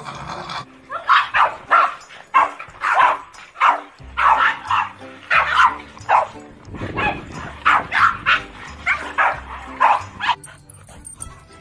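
Small dogs, Boston terriers, barking rapidly over and over, about two to three sharp barks a second, stopping abruptly near the end. Background music plays underneath.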